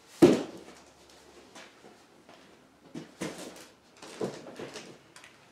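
Off-camera handling noises: a sharp knock about a quarter second in, then a few softer knocks and rustles near the end.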